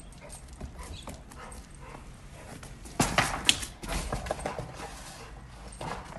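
A Rottweiler playing with a rubber tyre on brick paving: irregular scuffs, scrapes and knocks of the tyre against the paving, with the dog's claws clicking on the hard ground. The loudest scraping comes about three seconds in.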